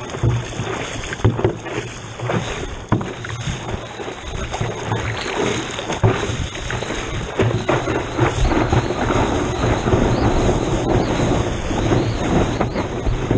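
Water lapping and splashing against the bow of a small craft on a light swell, picked up by a camera mounted just above the waterline, with frequent short slaps of water throughout.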